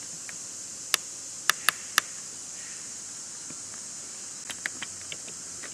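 Steady high-pitched insect chorus, with four sharp clicks between about one and two seconds in and a few fainter clicks near the end.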